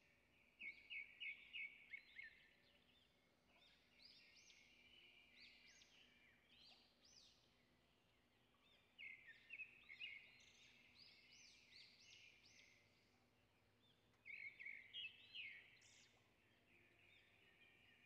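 Faint birdsong: small birds chirping and trilling, with three bursts of quick repeated notes (about a second in, about halfway through, and near the end) and scattered single chirps between them.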